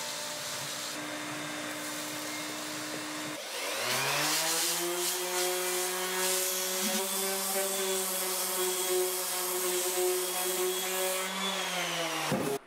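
A vacuum runs steadily for about three seconds. Then an electric orbital sander spins up with a rising whine, sands surface rust off a cast iron stove door frame at a steady pitch, and winds down just before the end.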